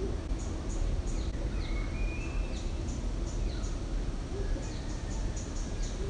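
Birds calling in forest: a short high call repeated about three times a second, with short falling whistles and a few drawn-out whistled notes about two seconds in, over a steady low rumble.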